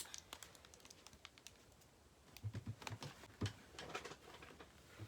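Faint, scattered clicks and soft taps of small toiletry items being handled and packed into a bag, with a brief cluster of knocks about halfway through.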